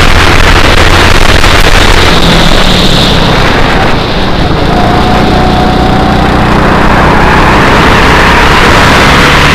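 Go-kart engine running hard under heavy wind noise on the onboard microphone. It eases briefly about four seconds in at a bend, then climbs slowly in pitch as the kart accelerates again.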